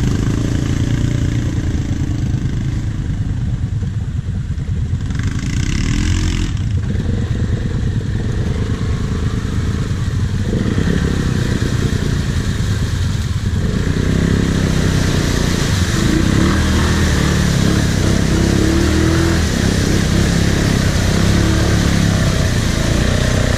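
Quad bike engine running steadily at idle, with a low, even throb and no change in speed; a rush of hiss joins it briefly about five seconds in and again over the second half.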